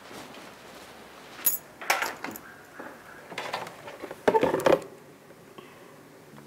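Several short knocks and clatters of a door and of objects handled on an office desk, the loudest cluster about four and a half seconds in.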